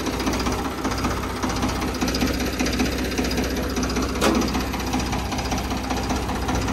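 Ford tractor's diesel engine running at idle with a fast, even clatter, with one sharp knock about four seconds in.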